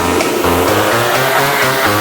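Background electronic dance music with a steady beat and a pulsing bass line.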